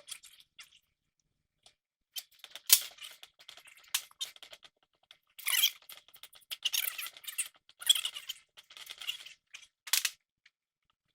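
Irregular scraping, squeaking and clicking of steering parts and tools being handled, with one sharp click about three seconds in.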